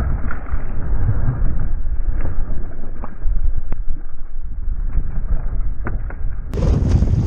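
Wind buffeting the microphone of a camera on a rowing double scull: a loud low rumble that sounds dull and muffled, with a few faint clicks. Near the end the sound turns brighter again, with wind and water noise.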